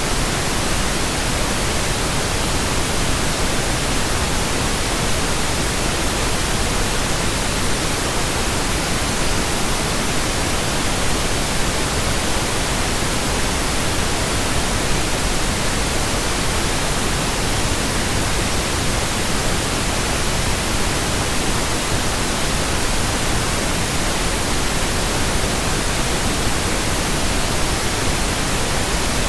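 Steady, unchanging synthetic pink noise: an even, fairly loud hiss that spreads across the whole range from deep rumble to high hiss, with no tones, clicks or changes.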